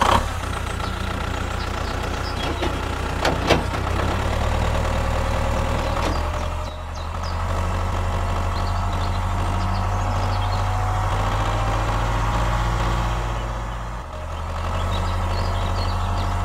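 Tractor engine running steadily at a low, even pitch, easing off briefly about seven seconds in and again about fourteen seconds in. A sharp click about three and a half seconds in.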